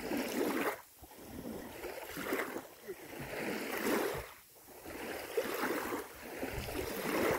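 Small river waves lapping at the shore, a soft swell of water noise every second or two.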